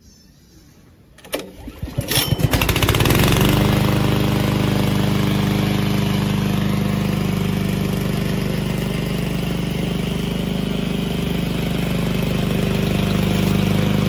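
Loncin 224cc single-cylinder four-stroke engine on a remote-control mower being pull-started: a knock just over a second in, the recoil-starter pull at about two seconds, then the engine catches at once and runs steadily.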